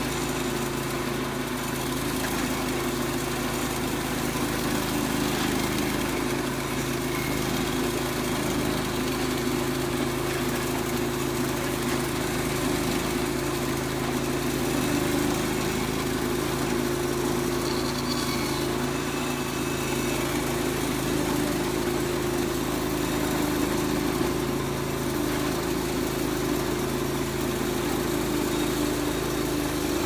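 Gasoline engine of a portable band sawmill running steadily at working speed while the saw head is pushed along a log, cutting a thick plank.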